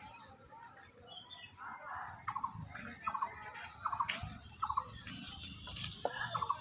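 Birds calling: a short rapid call of four or five clipped notes repeats about every second from about two seconds in, with other chirps around it over a low rumble.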